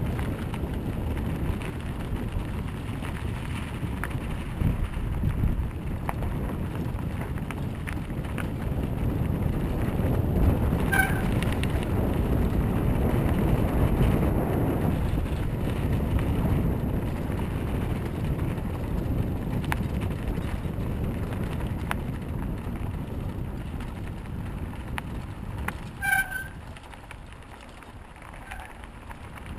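Mountain bike riding noise picked up by an action camera: wind rushing on the microphone over the rumble of the tyres rolling, swelling louder in the middle. Two short high squeaks, one about a third of the way in and one near the end.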